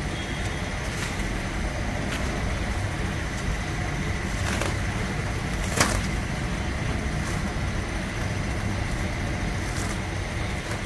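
Mobile crane's diesel engine idling steadily while it holds a suspended load, with a few sharp snaps over it, the loudest about six seconds in.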